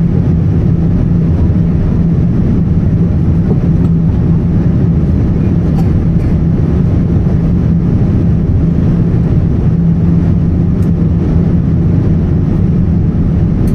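Cabin noise of a Boeing 787-10 airliner in flight, heard from a window seat: a steady, loud rush of jet engine and airflow noise with a constant low hum underneath.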